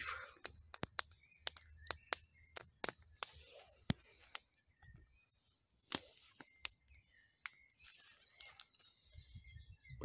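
Wood campfire crackling under cooking shashlik: sharp irregular pops, many in the first half and fewer later, with faint bird chirps.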